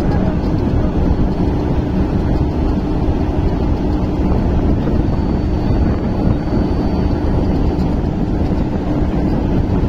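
Diesel railway crane's engine running steadily under load while it holds wheelsets on its cables: a continuous low-pitched drone.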